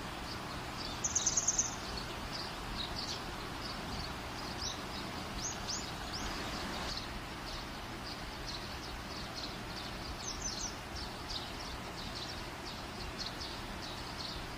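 Small birds chirping in the background, many short high calls over steady background noise, with a quick loud run of rapid chirps about a second in and a few downward-sweeping calls later.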